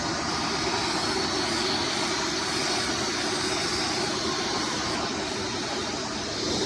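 Hoover Runabout Deluxe (U5064-940) vacuum cleaner running steadily, a continuous motor whine and airflow rush, smooth with no rattles or changes in speed.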